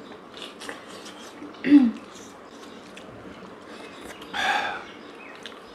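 People eating momos: faint mouth and chewing noises, with a short falling vocal hum about a second and a half in. Near the end there is a louder breathy burst like a sharp exhale or sniff.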